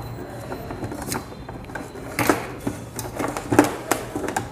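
Light clicks and clatter of a TV circuit board and its plug-in cables being handled and seated against the set's metal back panel, with a few sharper knocks spread through.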